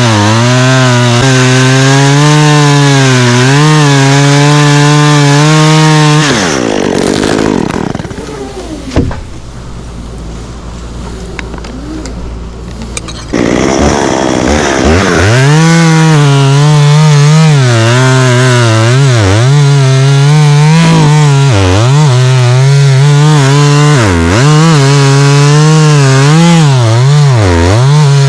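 Chainsaw running at high revs, its pitch wavering, then dropping to a low idle for about seven seconds with a single sharp knock in the middle, then revving back up with repeated brief dips in speed.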